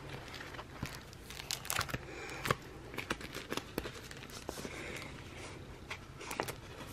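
Paper and sticker sheets rustling and crinkling as they are handled, with scattered light clicks and taps.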